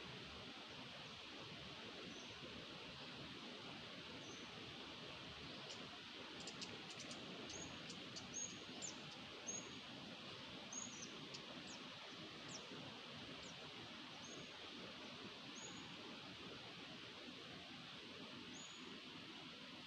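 Short, high-pitched bird chirps repeated every second or so, the นกดอกแตง decoy call used to lure birds, faint over a steady hiss, with a run of thin ticks in the middle.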